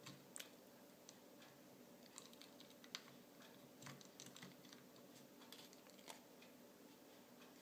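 Near silence with faint, scattered small clicks and taps from handling a Mercedes W163 door lock actuator as a new spring is slid into its hole.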